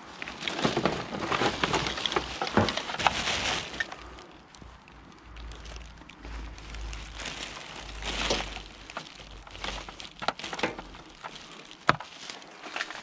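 Plastic bin bags and rubbish being rummaged through by hand: rustling and crinkling plastic, loudest in the first few seconds, with a few sharp knocks and clicks as items such as a plastic light fitting are moved.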